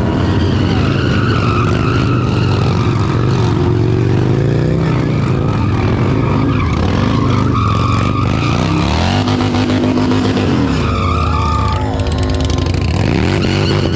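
Touring motorcycle doing a burnout: the engine is held at high revs that rise and fall repeatedly, and the spinning rear tyre screeches against the pavement.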